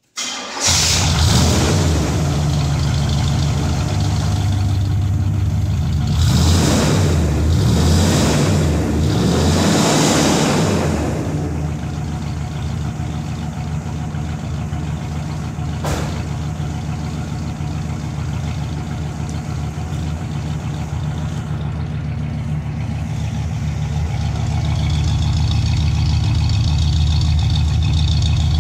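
1973 Pontiac Grand Am's 455 V8 starting almost at once on a cold start, then revved three times in quick succession before settling into a steady idle. It grows louder near the end, heard close to the tailpipe.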